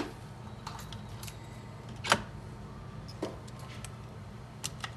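Light clicks and taps of small tools being handled on a repair bench, the sharpest click about two seconds in, over a steady low hum.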